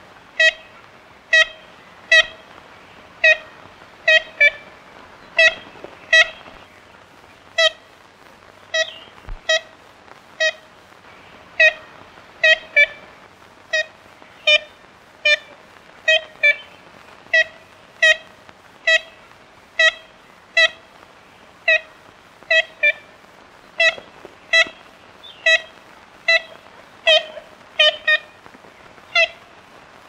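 Ivory-billed woodpecker calling: short, nasal, tin-horn-like 'kent' notes repeated irregularly about one or two a second, some in quick pairs, over a faint steady hiss.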